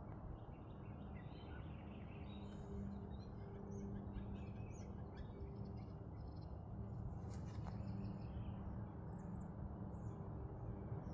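Small birds chirping now and then, over a steady low hum.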